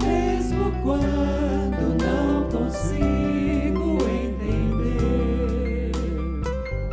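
Christian gospel song: singers with a backing band, steady bass and a regular beat.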